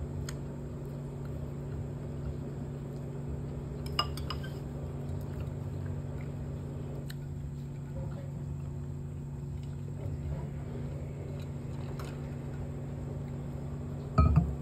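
Washing machine running a wash, a steady hum with an uneven low rumble underneath. A few light clinks of a spoon and metal cup, and a thump near the end.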